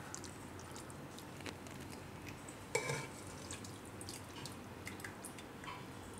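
Steel ladle scooping thick jackfruit curry out of an aluminium pressure cooker: light scrapes, clicks and wet sounds, with one louder knock of the ladle on the pot about three seconds in.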